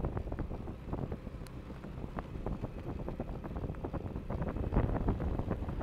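Wind buffeting the microphone of a moving car, crackling over the low rumble of the car on the road, with a stronger gust about five seconds in.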